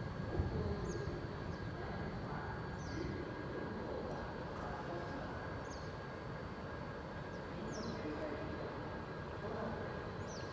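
A small bird giving a short, high, falling call five times, roughly every two to three seconds, over a steady low background hum of the station surroundings.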